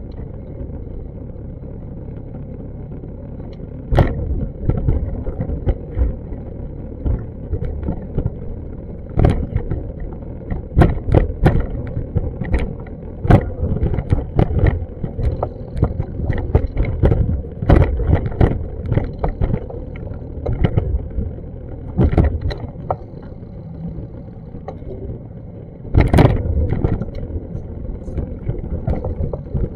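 Low, steady wind rumble on a DJI Osmo Action camera's microphone, broken by frequent irregular knocks and clicks. The knocks come thickest through the middle stretch and again as a loud cluster near the end.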